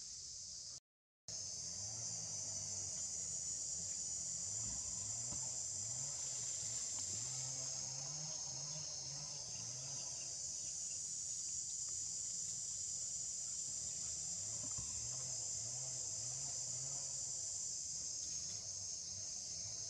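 Steady, high-pitched chorus of insects, continuous apart from a brief cut to silence about a second in.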